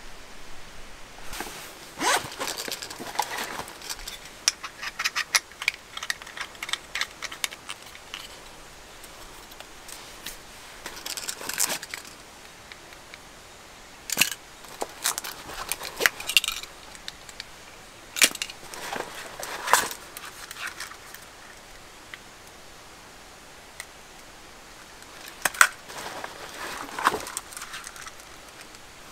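Small battery LED camping lanterns and a flat LED light being handled: clusters of light clicks, rattles and taps with quiet pauses between, a few sharp single clicks standing out.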